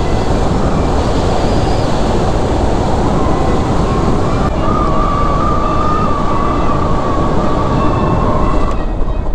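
Motorcycle being ridden at speed: steady wind rush over the helmet microphone with engine and road noise, and a thin steady whine that comes in about three seconds in, rises slightly and stops near the end.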